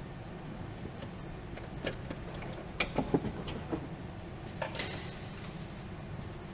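Metal hand tools clicking and clinking against engine parts, with a few scattered knocks (the loudest about three seconds in) and one ringing metallic clink near five seconds, over a steady low hum.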